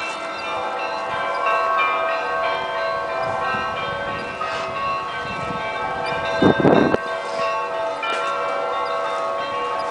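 Russian Orthodox church bells ringing: many bells struck in quick succession, their tones ringing on and overlapping. A short loud noise close to the microphone about six and a half seconds in.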